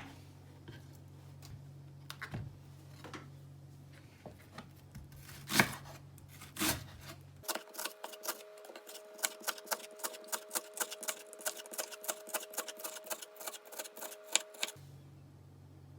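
A few knocks of kitchen work, then about halfway a fast, even run of sharp knife strokes on a cutting board, about four to five a second for some seven seconds, as food is chopped.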